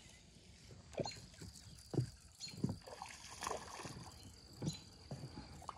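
A small hooked fish splashing and thrashing at the pond surface as it is reeled in: several short, faint splashes about a second apart.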